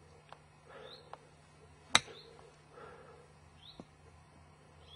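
One sharp click about two seconds in: a golf club striking the ball on a short uphill shot off grass, a contact the player calls a little heavy. Birds chirp in the background with short rising calls.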